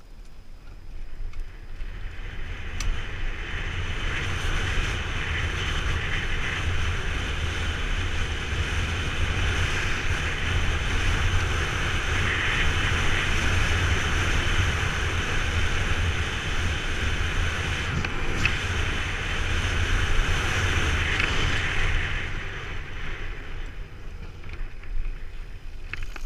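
Wind rushing over an action camera's microphone during a fast mountain-bike descent on a dry dirt trail, over a steady low rumble from the tyres and bike. The rush builds over the first couple of seconds and eases off near the end, with a few sharp clicks along the way.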